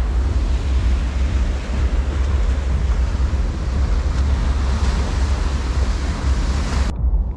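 Sea waves surging and breaking along the shore at high tide, under heavy wind buffeting on the microphone. The surf swells about five seconds in. Near the end the hiss cuts off abruptly, leaving only a low rumble.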